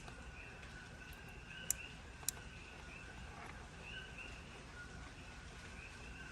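A chorus of coqui frogs calling steadily in the background, a run of short two-note chirps. Two sharp clicks come about a second and a half and two seconds in.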